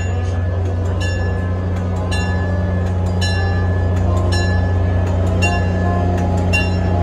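EMD FL9 diesel-electric locomotive arriving at low speed, its two-stroke EMD diesel running with a steady low rumble that grows a little louder as it approaches. Its bell rings about once a second over the engine.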